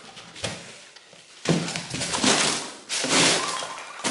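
Rummaging through a cardboard box of foam packing peanuts, with plastic bubble wrap crinkling: a single light click, then busy, uneven rustling from about a second and a half in.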